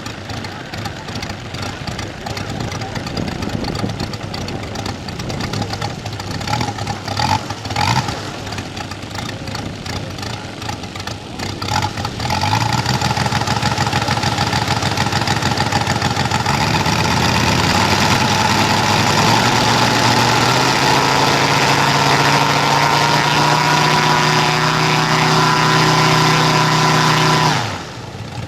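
400 cc radial engine of a giant RC model biplane running unevenly at low speed. About twelve seconds in, its note climbs steadily for several seconds to a high, steady run, then drops off suddenly near the end.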